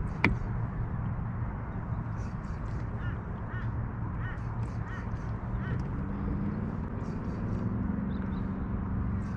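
Birds giving short harsh calls in repeated groups, over a steady low hum, with one sharp click just after the start.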